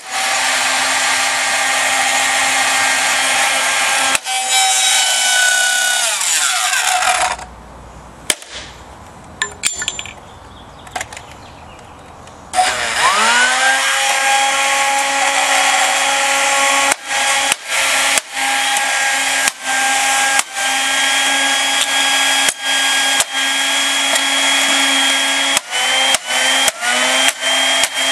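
Dirt Devil handheld vacuum's electric motor running with a steady whine while it is hit with a hammer, its plastic housing cracking under the blows. About seven seconds in the motor winds down and stops, and about five seconds later it spins back up. Later the hammer blows come about once a second, quickening near the end, each one making the whine dip briefly.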